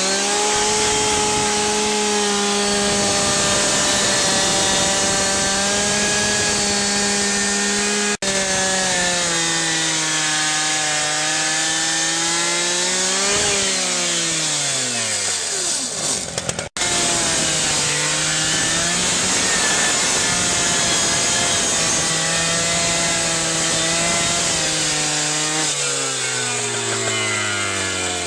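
Cutters Edge rescue saw with a Bullet Blade, its two-stroke engine held at full throttle while cutting through a tarred roof. About halfway in the engine bogs down under load, its pitch sagging, then picks up again. The sound breaks off abruptly twice, and near the end the engine drops back toward idle.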